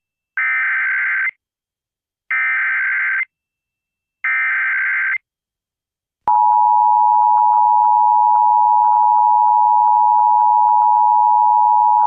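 Emergency Alert System tones for an Amber Alert. The SAME digital header sounds as three separate one-second bursts of shrill data screech, with about a second of silence between them. About a second after the third burst, the steady two-tone EAS attention signal begins and holds loud, announcing the alert.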